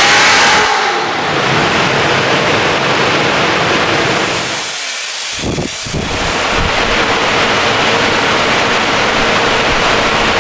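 Steady rushing noise of a chassis dyno winding down after a full-throttle pull: the rollers and tyres spinning down with the dyno cell's air moving. The Blackwing's supercharged V8 note falls away in the first second. The noise briefly drops about halfway through, then carries on.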